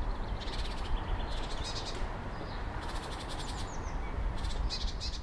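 Outdoor woodland ambience: short, rapid high-pitched trills repeated every second or so, with a few brief chirps, over a steady low rumble.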